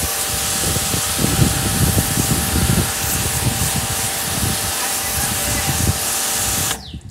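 Water jet from a hose nozzle spraying onto a horse's legs and body, a steady hiss with uneven splattering and a steady hum beneath it. It cuts off suddenly near the end.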